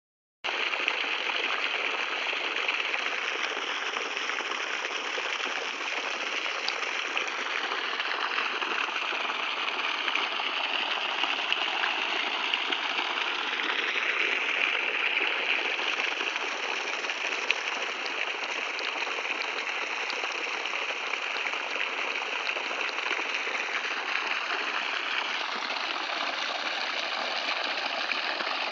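Water gushing steadily from a solar-powered irrigation pump's outlet pipe. It starts abruptly about half a second in.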